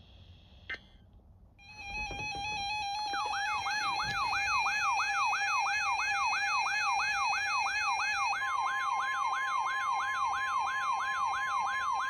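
Electronic emergency alert tones. A steady tone starts about a second and a half in. From about three seconds a siren-like warble sweeps up and down about three times a second, and a second steady tone joins it about eight seconds in, signalling an incoming weather warning.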